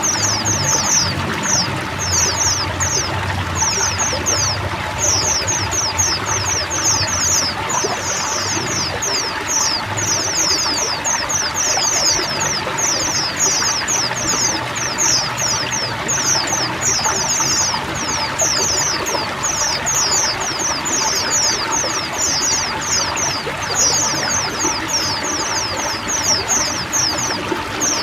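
A flock of white-eyes chirping together in a dense, unbroken chorus of quick, high, falling notes, over the steady rush of running water.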